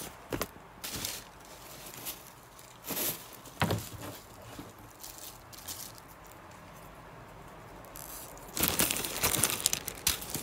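Rustling and crinkling of packaging as items are handled in a subscription box, in scattered short bursts, with a longer, louder run of plastic-wrapper crinkling near the end as a wrapped makeup sponge is handled.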